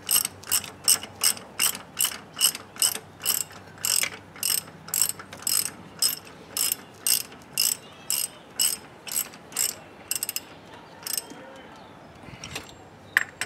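Hand ratchet clicking in steady back-and-forth strokes, a little over two a second, as a new oil pressure sensor is run down into the engine block. The clicking stops about ten seconds in, leaving a few scattered clicks.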